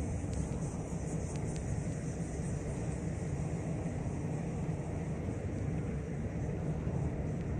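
Steady low rumble of a car's engine and tyres on a paved road, heard from inside the cabin while driving. There are a few faint ticks in the first couple of seconds.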